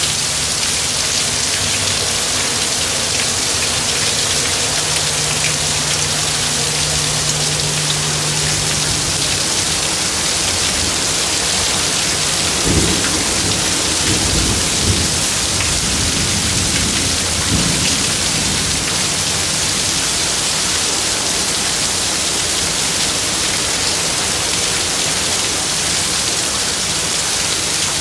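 Heavy rain pouring down steadily in a severe thunderstorm. About thirteen seconds in, thunder breaks out suddenly and rumbles for around five seconds.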